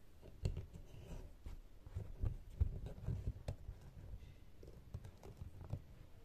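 Irregular soft thumps and taps of fingers working a needle and thread through taut, frame-stretched embroidery fabric, with a few light clicks. The loudest knocks come about half a second and two and a half seconds in.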